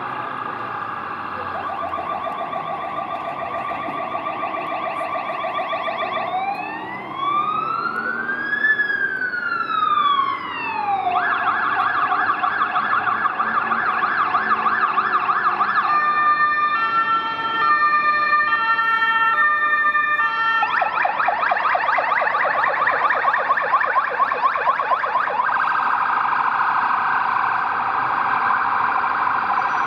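Ambulance siren from a Gamet GAM 150N electronic siren modulator, cycling through several tones. It begins with a fast warble, then about six seconds in makes one slow wail rising and falling over about four seconds. The fast warble returns, then past the middle it switches for about five seconds to stepped hi-lo tones before going back to the fast warble.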